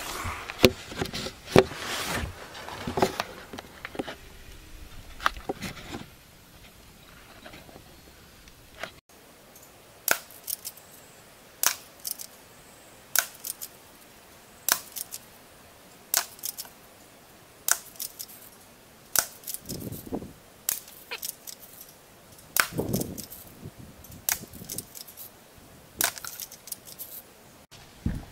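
A Daisy Powerline 340 spring-air BB pistol fired again and again, a short sharp snap about every second and a half. Before that come rustling and knocks of handling.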